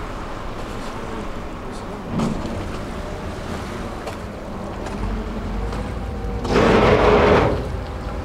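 Passenger ferry's engine running with a steady low rumble and the rush of water and wind along the boat. About six and a half seconds in, a louder surge of engine and water noise lasts about a second.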